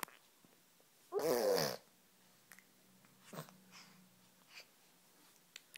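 Baby girl making one loud, drawn-out vocal squeal that slides down in pitch, about a second in, followed by a few small, faint sounds.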